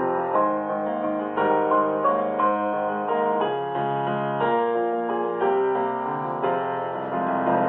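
Soft piano music, slow single notes and chords changing about once a second.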